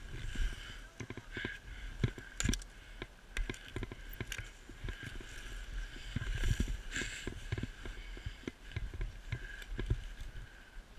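Snowboard sliding and carving through deep soft snow: a continuous swishing scrape with frequent irregular knocks and bumps, heard through a camera carried by the rider.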